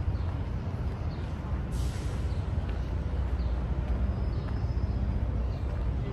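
Outdoor city ambience: a steady low rumble, with a few faint bird chirps.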